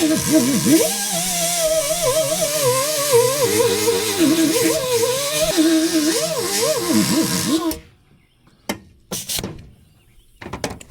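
Tire buffer running and grinding the tire's inner liner around a nail hole to prepare it for a patch. Its whine wavers and dips in pitch as it is pressed into the rubber, then stops suddenly about eight seconds in, followed by a few short knocks.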